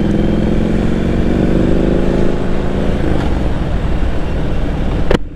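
2017 Triumph Street Scrambler 900's parallel-twin engine running while riding, its pitch rising over the first few seconds as it accelerates and then holding steady, with wind noise.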